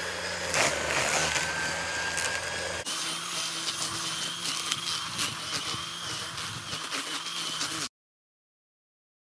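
A power tool's motor running steadily while clearing brush, with a steady whine over a low hum. The sound changes abruptly about three seconds in, then cuts off to dead silence for the last second or so.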